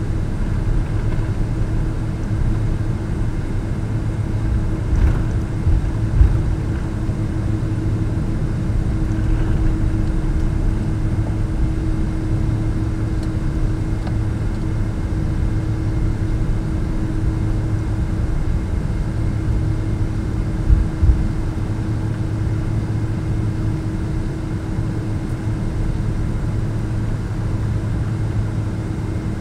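Steady low rumble and hum inside the cabin of an ANA Boeing 777-200 airliner, with a constant droning tone over it. A few short low thumps come about five to six seconds in and again about two-thirds of the way through.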